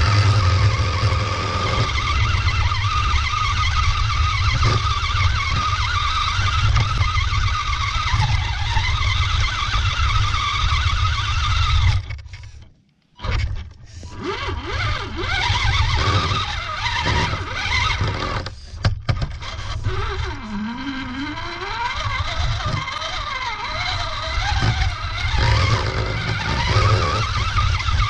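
RC rock crawler's motor and drivetrain whining as it crawls over dirt, the pitch wavering with the throttle over a heavy low rumble. About twelve seconds in it cuts out for a moment, then starts again with the whine rising and falling.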